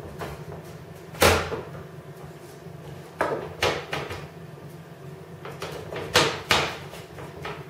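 Hand fluting pliers crimping the aluminium flanges around a wing rib's lightening holes to flatten the bowed rib: a sharp clack with each squeeze, five in all, the loudest about a second in, over a steady low hum.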